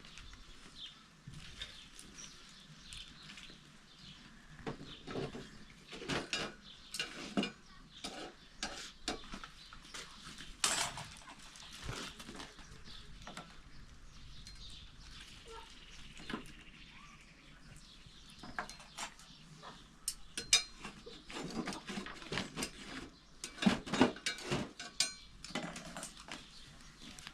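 Irregular knocks and clattering, with livestock calling.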